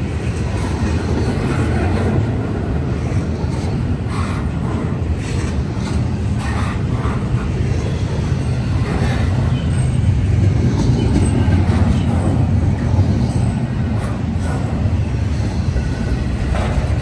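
Intermodal freight train's cars rolling past: a steady low rumble with scattered clicks and knocks from the wheels on the rails.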